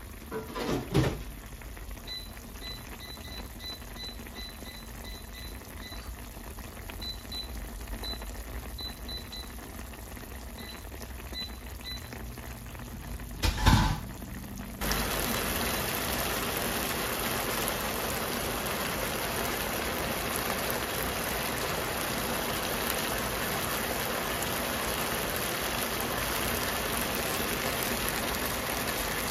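Chicken and Coca-Cola sauce simmering in a pan: faint bubbling with small ticks, a knock about a second in and a louder knock near the middle, then a steady, louder bubbling hiss as the sauce reduces.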